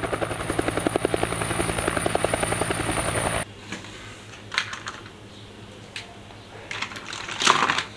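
Toy helicopter's battery-powered rotor sound effect: a rapid, even chopping with a thin high whine over it, which cuts off suddenly about three and a half seconds in. A few light clicks follow.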